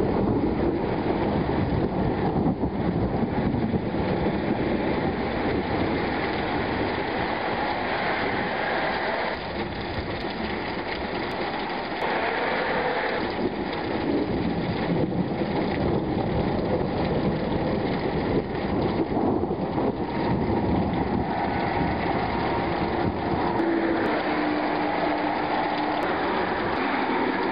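Thunderstorm: steady rain with low rolling thunder rumbling through it.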